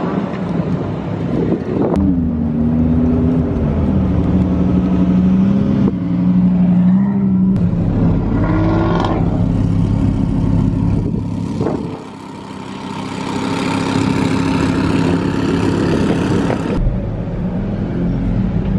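Car engines running and revving, with a rev rising and falling about nine seconds in; in the later part the engine sound is heard from inside a car.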